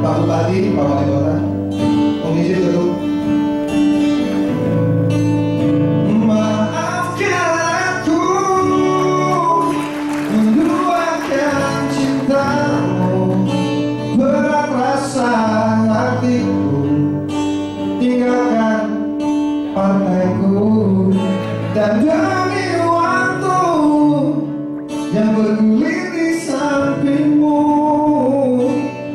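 A man singing a melody with long held notes into a microphone, accompanied by two acoustic guitars, amplified through a PA.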